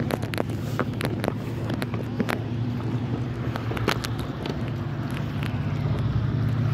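A fishing kayak moving on open water: a steady low hum with wind buffeting the microphone, and many scattered sharp ticks.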